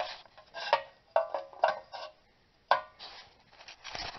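About half a dozen irregular hammer blows on steel, each ringing briefly: a chisel being driven between the brake dust cover and the rear wheel bearing hub to break loose a bearing that is galled (seized) to the spindle.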